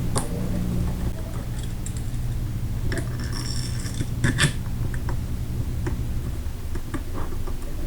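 Small metal parts and tools clicking and clinking while a pistol grip screw and lock washer are handled, scattered clicks with a short clatter about three to four and a half seconds in, over a steady low hum.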